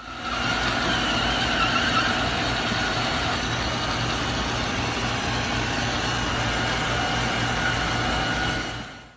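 Robot vacuum cleaner running steadily, a motor hum and brush noise with a low, even pulse.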